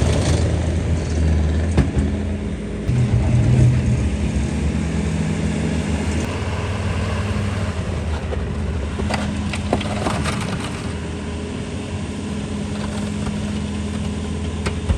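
A vehicle engine running steadily at a low rumble. It picks up briefly in pitch and loudness about three seconds in, and there are a few scattered clicks.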